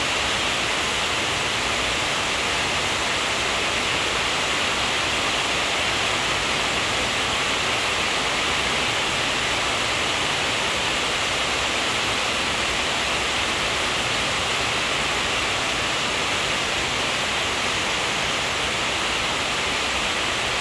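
A steady, unchanging hiss, with nothing else standing out.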